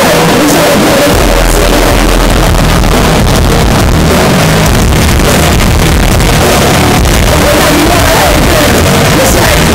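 Live rock band playing loud through a concert PA, heard from within the crowd, with electric guitar. A deep low note comes in about a second in and holds until about seven seconds.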